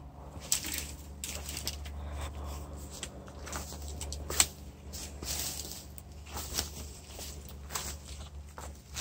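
Footsteps through dry leaf litter and fallen branches: scattered crunches and twig cracks at an uneven pace, the sharpest crack about four and a half seconds in.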